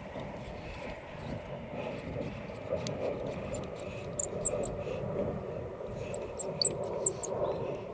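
A few light metallic clicks as bolts are threaded in by hand during a brake pad change, over a steady low background drone.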